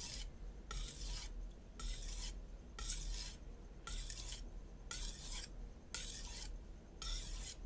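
A Shun Classic chef knife's edge being stroked back and forth on a Naniwa Super Stone 400-grit whetstone: a gritty rasp on each pass, repeated evenly at about one stroke a second with short gaps between.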